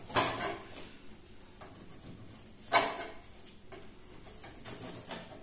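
Knife slicing garlic cloves thinly on a plastic cutting board: a handful of sharp taps of the blade meeting the board at irregular intervals, the loudest about halfway through.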